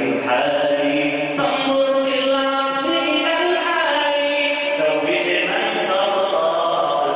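A man singing an Arabic nasheed solo into a microphone, drawing out long held notes that slide slowly from one pitch to the next.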